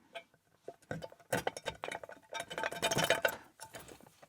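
Small metal lockpicking tools and lock hardware clinking and rattling as they are handled, a dense run of sharp clicks through the middle.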